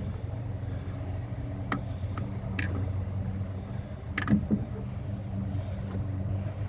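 The 1997 Chevrolet Suburban's engine idling steadily, with a few sharp clicks and knocks from parts being handled, the loudest about four seconds in.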